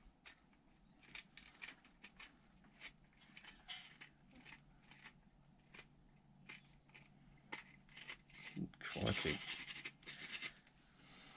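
Irregular short scraping and scratching strokes of hand work, roughly one or two a second, with a louder, longer rasping stretch about nine seconds in.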